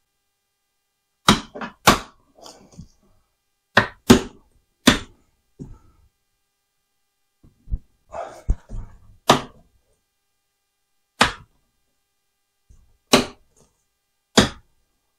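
About a dozen sharp knocks and clacks, irregularly spaced, of hard plastic items being handled and set down on a table.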